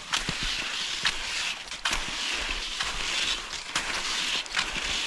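Cross-country skis hissing over packed snow in a steady stride rhythm, each glide swelling and fading, with a few sharp clicks.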